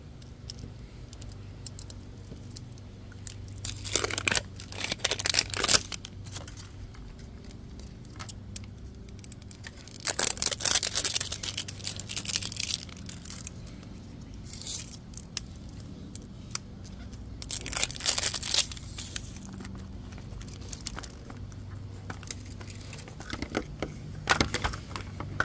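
Clear plastic film and sticker seals being torn and peeled off a plastic toy capsule ball, in four rustling, tearing bursts of one to three seconds each.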